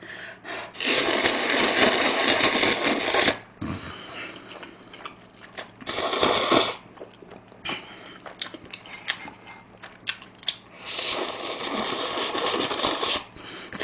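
A person slurping thick instant jjajang noodles in three long, loud hissing slurps: the first about two and a half seconds long, the second about a second, the third about two seconds near the end. Short wet chewing clicks come between the slurps.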